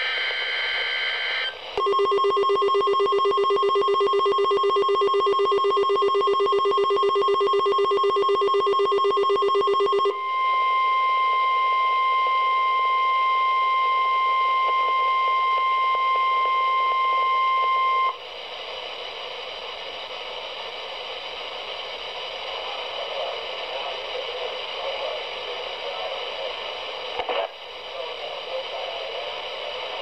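An AlertWorks weather alert radio sounds a rapidly pulsing electronic alarm for about eight seconds as it receives a NOAA Weather Radio Required Weekly Test. The alarm gives way to a steady, shrill single tone, typical of the 1050 Hz weather radio alert tone, for about eight more seconds. It cuts off sharply into a fainter hiss of dead air, with a single click a few seconds before the end.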